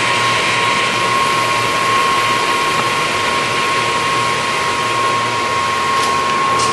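Harrison 21" x 64" centre lathe running at its lowest spindle speed, 31 RPM: a steady mechanical running sound from its 12.5 HP drive and headstock, with a constant high whine.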